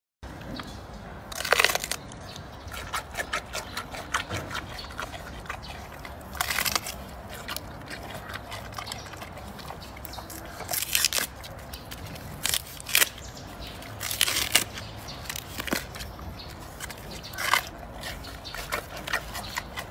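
Giant panda biting and chewing sugarcane: about six sharp, loud crunches as it bites off pieces, with quieter crackly chewing clicks in between.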